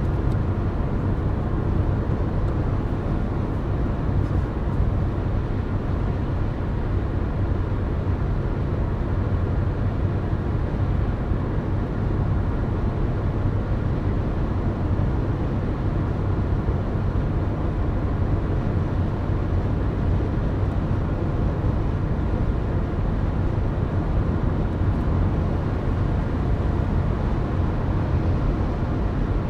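Car cruising at highway speed, heard from inside the cabin: a steady low rumble of tyre and engine noise that does not change.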